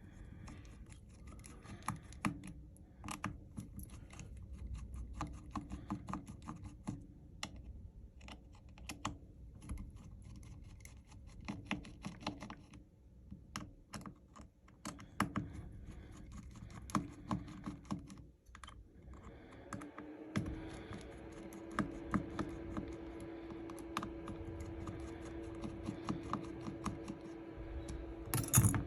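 Small repair tools clicking and tapping on the opened Samsung Galaxy S20 FE as the screws and cover over its charging port are taken off: irregular light clicks, a few a second. A low steady hum joins about two-thirds of the way in.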